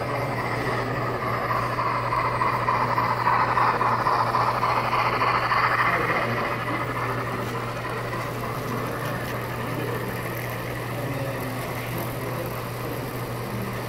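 N scale model freight train running past on the layout track, louder in the first half as the head of the train goes by, then the cars rolling on steadily. A steady low hum runs underneath.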